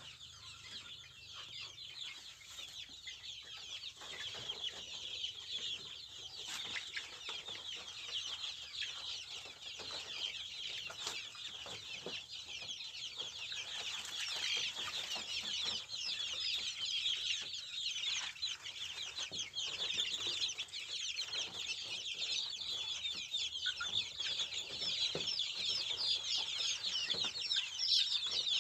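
A crowd of kampung chicken chicks peeping continuously in a dense chorus of high, quick chirps that grows louder toward the end.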